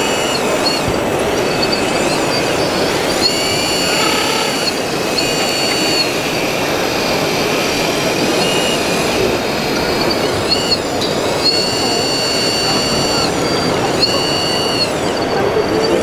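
High electric whine of 1/14-scale RC hydraulic construction machines' pumps, starting and stopping in spells of a second or two about five times, with pitch glides as they spin up and down. It sits over a steady background noise.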